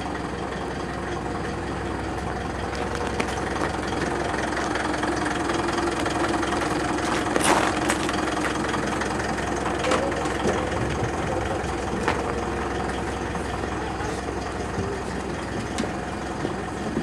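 Truck engine of a truck-mounted aerial work platform idling steadily, with a few sharp knocks about halfway through.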